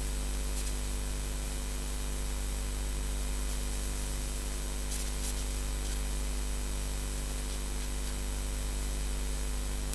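Steady electrical hum and hiss on the sound feed, with a faint tick about five seconds in.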